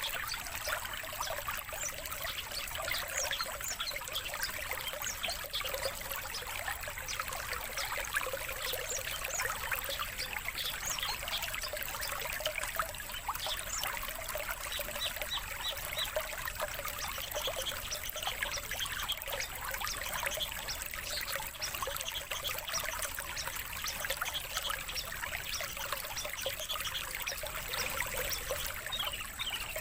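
Songbirds chirping in quick, dense strings of short notes over a steady background of trickling water.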